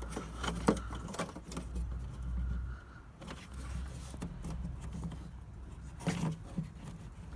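Scattered plastic clicks and handling noise as a headlamp bulb holder in a Citroen C3 headlight unit is twisted and unclipped, over a low rumble in the first three seconds.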